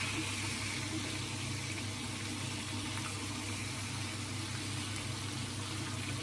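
Spice-coated whole fish shallow-frying in hot oil in a pan, sizzling steadily, with a low steady hum underneath.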